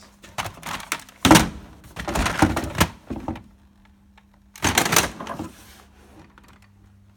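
Hard objects clattering and knocking as things are handled and moved about, in bunched rattling clusters: a loud knock about a second in, a longer rattle from about two to three and a half seconds, and another short clatter around five seconds.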